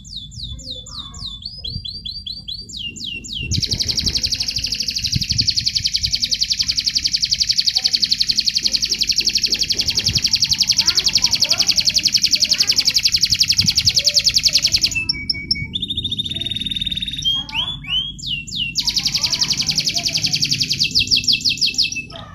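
Domestic canary singing in rapid trills of fast repeated notes. In the first half there is one long unbroken trill of about eleven seconds, followed by shorter chirps and sliding notes and another fast trill near the end.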